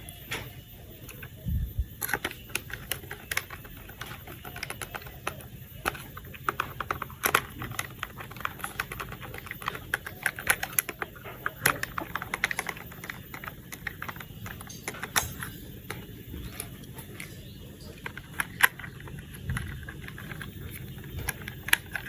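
Plastic toy parts being handled and fitted together: a long run of irregular light clicks and taps.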